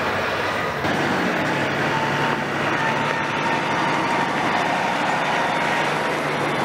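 Heavy diesel construction machinery running steadily: a deep engine drone with a faint whine above it. The sound shifts abruptly about a second in.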